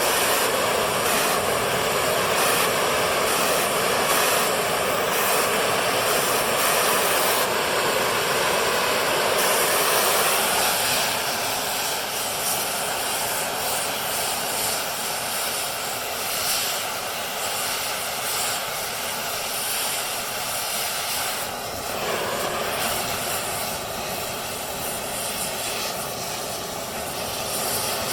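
Oxy-fuel cutting torch flame running with a steady jet-like roar, a little louder for the first ten seconds or so.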